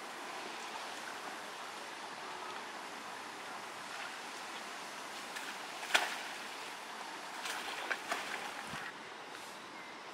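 An Asian elephant kicking and scraping wet mud with a front foot over a steady background hiss, with one sharp slap about six seconds in and a few smaller knocks a second or two later as clods of earth are flung.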